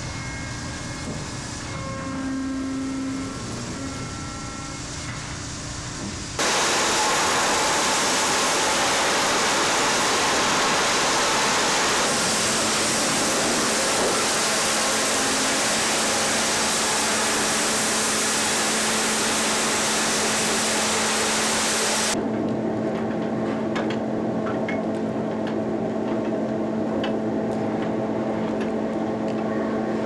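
Sawmill machinery running. The hydraulic pump and chain drive run with a few steady whining tones. About six seconds in, a much louder, even rushing noise starts as the chain conveyor drags sawdust, and about twenty-two seconds in it gives way to a quieter steady hum.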